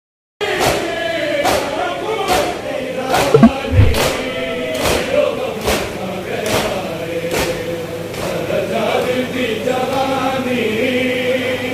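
A crowd of men chanting a noha, a Shia lament, in unison, with rhythmic matam chest-beating: palms slapping chests a little more than once a second. The slaps fade out after about eight seconds while the chanting goes on.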